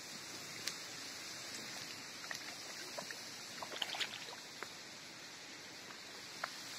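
A hooked fish splashing at the water's surface as it is reeled in: a few light splashes and ticks, most of them about three to four seconds in, over a steady faint hiss.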